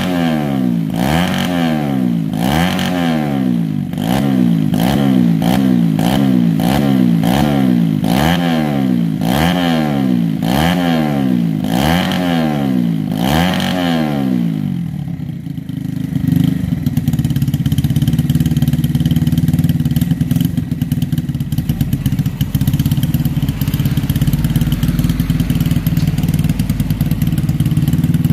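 Yamaha Vega R's four-stroke single-cylinder engine, bored up with a 53 mm FIM piston and running a 28 mm PWK carburettor, revved in quick blips about once a second for some fifteen seconds, then settling to a steady idle.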